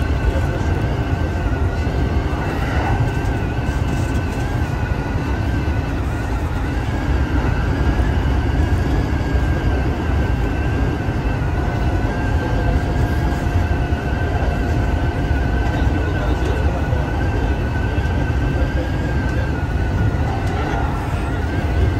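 Kintetsu 2800 series electric train running at speed, heard from inside the front car: a steady rumble of wheels on rail with a faint wavering whine above it.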